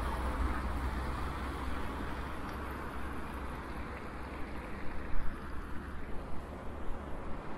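Wind buffeting a microphone on a moving bicycle, a fluctuating low rumble over a steady hiss of road noise, with a few short knocks about five to six and a half seconds in.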